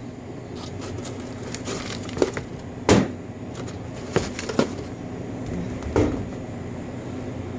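Glass sauce bottles and a jar being set down on a stainless steel counter: a handful of short knocks, the loudest about three seconds in and again at six seconds, over a steady low background hum.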